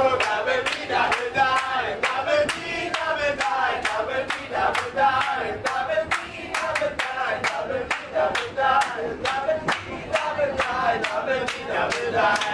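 A group of people singing a chant together over steady rhythmic hand clapping.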